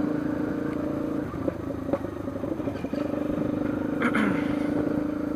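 Yamaha Lander 250's single-cylinder four-stroke engine running steadily under a ridden motorcycle. The engine note eases off for about two seconds, then picks up again. A brief, sharper sound comes about four seconds in.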